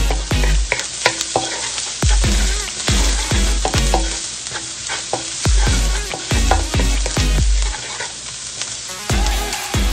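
Minced garlic sizzling as it fries in oil in a nonstick wok, with a wooden spatula scraping and stirring it in quick repeated strokes. A deep, repeating electronic bass beat from background music runs underneath.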